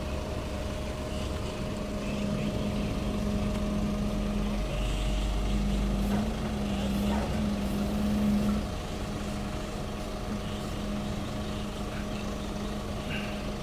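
Aerial platform truck's diesel engine running with the hydraulic system working the boom, a steady drone; it grows louder and wavers in pitch from about two seconds in, then drops back to a lower, even hum at about eight and a half seconds.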